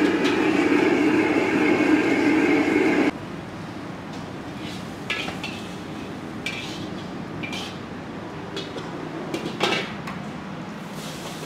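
Stir-frying noodles in a wok: a loud, steady burner roar and sizzle for about three seconds that cuts off suddenly, then metal utensils scraping and clinking against the wok several times.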